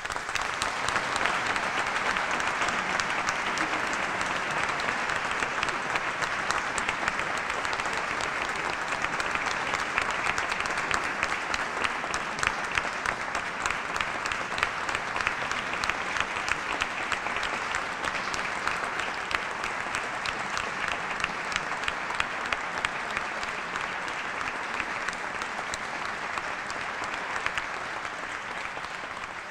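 Audience applauding, breaking out suddenly and holding steady, then easing off slightly near the end.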